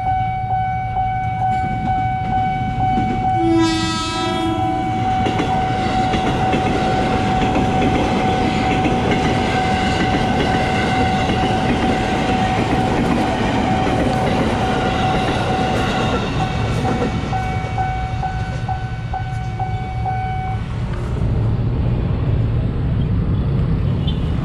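Level-crossing warning bell ringing steadily while a KRL Commuter Line JR 205 series electric train sounds a short horn about three and a half seconds in. The train then passes over the crossing with a continuous rumble and wheel clatter, and the bell stops about twenty seconds in.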